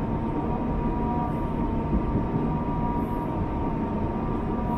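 Electric multiple-unit train running: a steady rumble with a steady whine over it.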